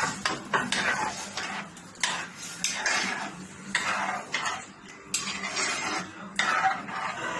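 A spoon knocking and scraping against a cooking pot in a run of clatters, sometimes several a second, over a faint steady hum.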